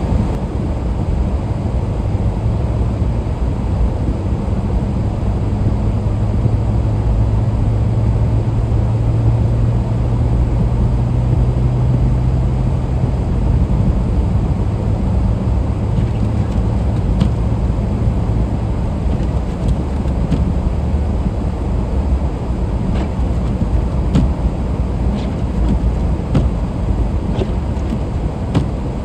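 Car driving on the road: steady engine and road rumble, with a low hum that holds for several seconds and fades out about halfway through, and a few faint ticks in the second half.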